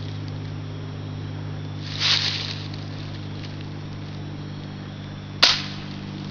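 A multi-pump BB gun firing once, a single sharp crack about five seconds in. A short rustling hiss comes about two seconds in, and a steady low hum runs underneath.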